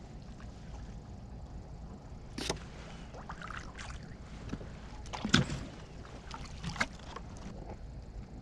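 A few separate knocks and bumps in a small boat on the water, over a steady low rumble.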